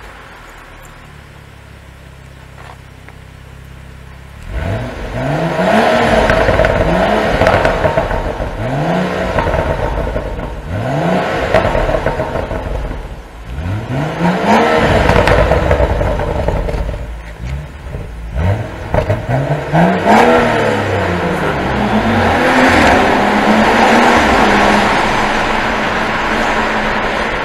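Stock exhaust of a BMW M135i F20 LCi with its 3.0-litre single-turbo straight-six. It idles quietly for about four seconds, then is revved repeatedly in quick blips, each pitch rising sharply and falling back. Near the end it settles into a longer, steadier stretch of engine sound.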